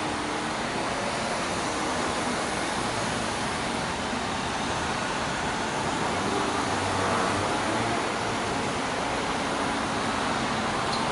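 Steady traffic noise from a line of city buses driving past in convoy, engines and tyres running with no sudden events.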